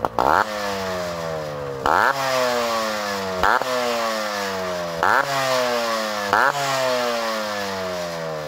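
Two-stroke Yamaha RX-series motorcycle engine blipped sharply five times through an aftermarket open cat silencer, the pitch falling away slowly after each blip as the revs drop back toward idle.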